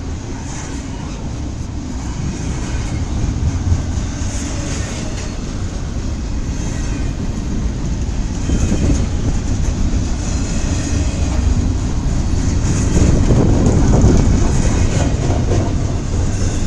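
Double-stack intermodal freight cars rolling past: a steady rumble of steel wheels on rail with scattered clicks over rail joints. It grows louder toward the end.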